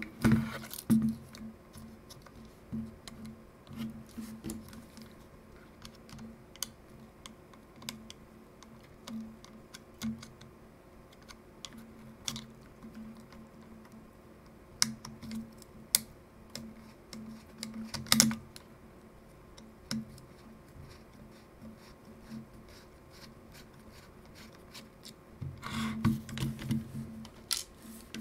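Irregular small clicks, taps and scrapes of a plastic compact camera body being handled and pried at with a small screwdriver, with a flurry of louder handling knocks near the end.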